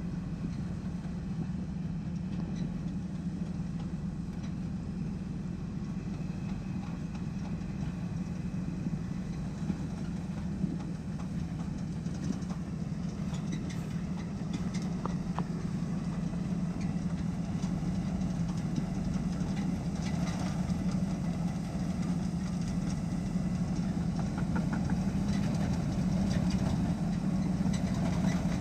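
Large rice combine harvester's engine running with a steady low drone, growing louder toward the end as the machine comes closer, with faint mechanical rattles and clicks over it.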